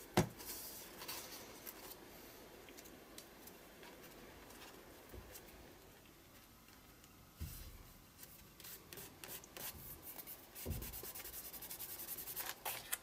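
Fingers pressing and rubbing torn paper pieces flat onto a freshly glued journal page: a faint dry scratching and rustle that becomes busier over the last few seconds. A sharp knock comes right at the start, and there are a couple of soft thumps on the page later.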